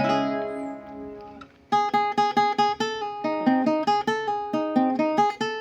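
Requinto guitar played in A minor: a chord rings out and fades, then after a short pause a fast melody of single picked notes follows, about five notes a second.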